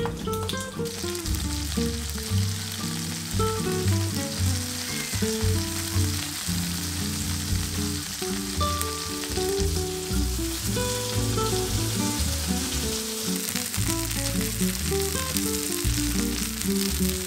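Egg-battered pollack fillets (dongtae-jeon) sizzling steadily in oil on an electric griddle. Background music with a moving bass line plays over the frying.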